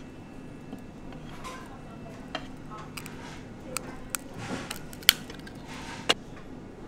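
A few sharp clicks and clinks of a crab claw and spoon being handled on a ceramic plate, the loudest a little after five seconds in and again about a second later, over a low steady room hum.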